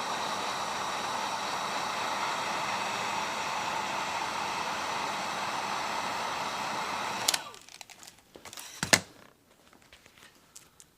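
Heat gun blowing steadily as it heats a sheet of bitumen sound deadener, switched off about seven seconds in with a click. A single knock follows a little later.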